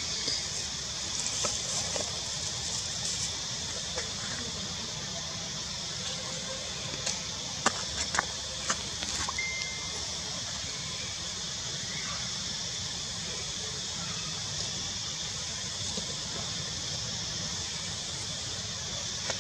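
Steady outdoor ambience: an even, high insect drone, with a few faint clicks about eight seconds in and one brief high squeak shortly after.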